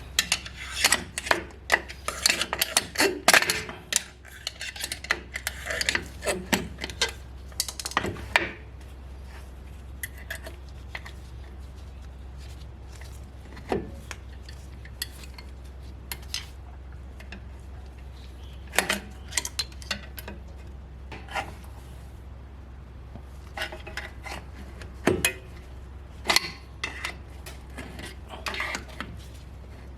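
Steel drum-brake parts (brake shoes, return springs and hand tools) clinking and rattling as the bottom return spring is fitted. The clinks come thick and fast for the first eight seconds or so, then turn scattered, over a steady low hum.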